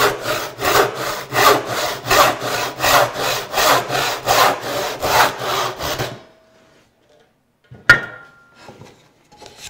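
Brass-backed joinery backsaw crosscutting a small wooden board, in steady strokes about three every two seconds; the sawing stops about six seconds in as the cut goes through. A single sharp knock follows near the end.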